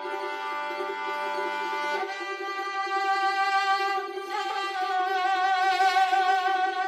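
Background music: a violin playing slow held notes with vibrato over a sustained lower accompaniment, changing note about two seconds in and again about four seconds in.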